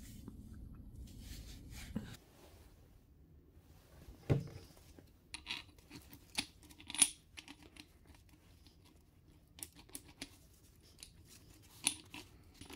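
Scattered metal clicks and taps as a rusty car clutch disc is handled and turned over, with a duller knock about four seconds in and the sharpest click near seven seconds. A soft low rustle of handling fills the first two seconds.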